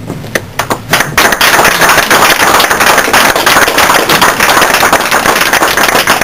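A small group of people applauding: a few scattered claps, then full applause from about a second in.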